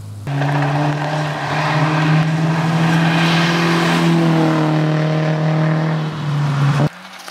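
BMW 116i rally car engine held at high revs under load, its pitch fairly steady and edging upward, over a loud rushing noise. The sound cuts in abruptly just after the start and drops away suddenly near the end.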